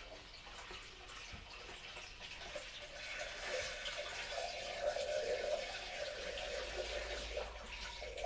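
Grape wash pouring from a plastic bucket into a stainless-steel still pot, a steady splashing stream that grows heavier about three seconds in as the bucket tips further.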